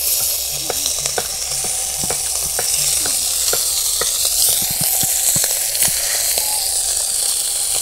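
Puti fish sizzling in hot oil in a kadai, with a steady hiss and frequent sharp pops of spattering oil as a fresh batch of fish fries.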